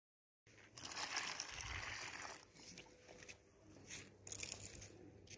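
A litter of puppies eating together, with crunching and chewing noises. A rustle runs through the first couple of seconds, then come scattered sharp clicks.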